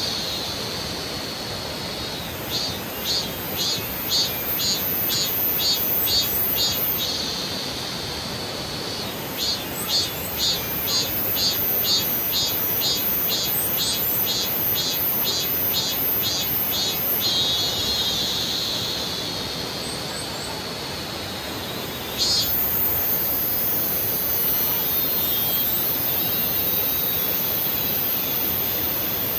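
Cicadas calling in high, pulsed phrases of about two pulses a second, in two long bursts, over the steady rush of a creek. A second continuous high buzz starts suddenly about two-thirds of the way through.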